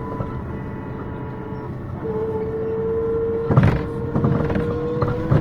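City bus in motion, heard from inside: steady running noise with a whine that grows louder and rises slowly in pitch from about two seconds in as the bus picks up speed. Two sharp knocks or rattles come about halfway through and near the end.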